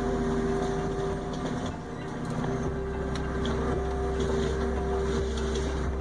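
Heavy machinery running: a steady engine drone with a deep rumble and a constant hum, dipping briefly about two seconds in.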